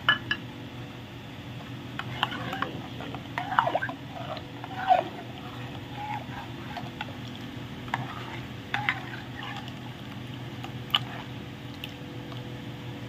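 Steel spoon stirring milk with chopped apple in a steel bowl: liquid sloshing with short clinks of the spoon against the bowl, busiest around four to five seconds in. A steady low hum runs underneath.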